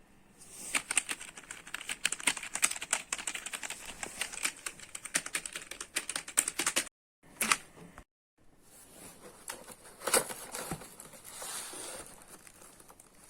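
Fast typing on a computer keyboard, dense key clicks for about seven seconds. After a sudden break, sparser clicks and handling noise follow, with one louder knock about ten seconds in.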